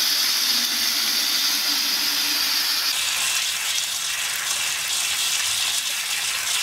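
Tap water pouring in a steady stream into a blue plastic bucket, filling it: a continuous splashing rush. Its bright hiss drops away about three seconds in, leaving a duller splash.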